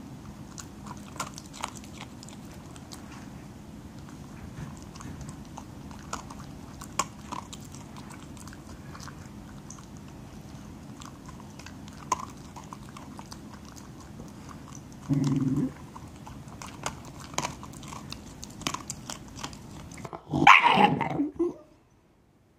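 Shiba Inu crunching and chewing dry kibble from a bowl: scattered crisp crunches over a steady low hum. Near the end a louder sound about a second long stands out above the chewing.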